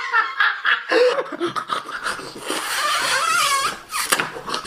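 Villain laughter in the style of the Joker, in short bursts with a long wavering laugh a little after halfway.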